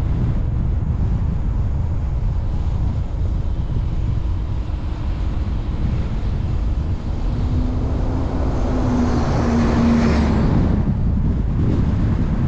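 Steady road and wind rumble from a car driving a mountain road. From about eight seconds in, another vehicle approaches and passes: its engine note and tyre noise swell, peak at about ten seconds, then fade.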